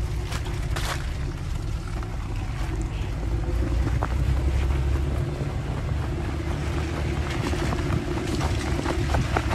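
A vehicle engine running steadily under way with tyres on a muddy, slushy track and wind buffeting the microphone. Scattered sharp clicks appear near the end.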